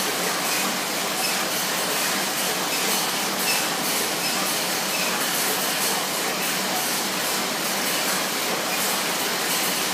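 Schwinn AirDyne air bike's fan wheel spun hard by pedalling and arm pumping, giving a loud, steady rush of air.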